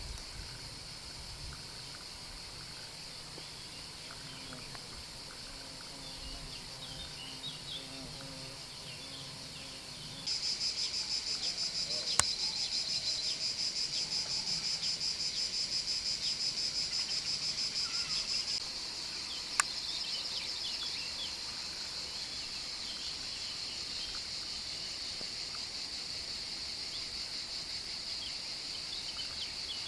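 Summer cicadas buzzing steadily and high-pitched. About ten seconds in, a much louder, rhythmically pulsing cicada song starts abruptly and stops about eight seconds later. Two sharp clicks sound over the chorus.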